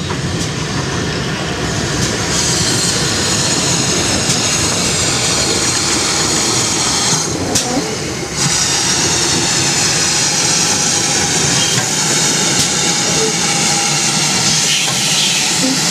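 GWR 'Dukedog' 4-4-0 steam locomotive No. 9017 'Earl of Berkeley' rolling slowly past at close range, tender first, with rail and running-gear noise under a loud, steady hiss. The hiss drops out briefly just before the middle and then resumes.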